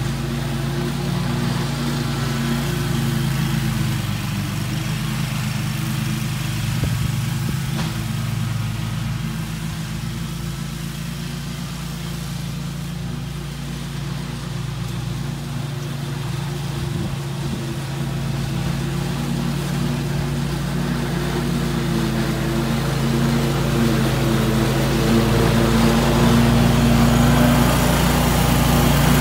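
Scag Tiger Cat II zero-turn mower's engine running steadily while mowing thick grass. It grows quieter in the middle and louder again toward the end as the mower comes back closer.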